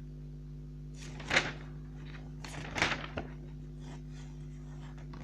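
Paper rustling as the glossy pages of a football sticker album are turned and a sticker sheet is handled, with two louder rustles about a second and nearly three seconds in, over a steady low hum.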